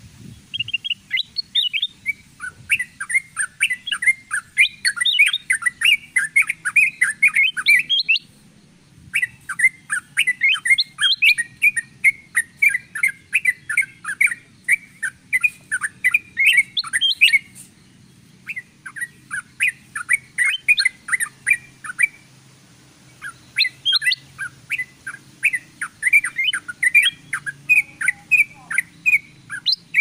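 Bulbuls chattering in a bird-lure recording that mixes yellow-vented bulbul (trucukan) and ruby-throated bulbul (kutilang emas) calls. The calls come as busy runs of quick, sharp chirps, several a second, in bouts of a few seconds with brief pauses.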